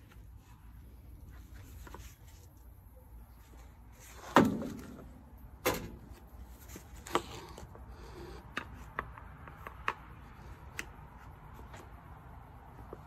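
A Weber Spirit 210 grill's black plastic panel and its metal rod being handled and fitted into place: a sharp knock about four seconds in that rings briefly, another knock a second or so later, then a run of lighter clicks and taps.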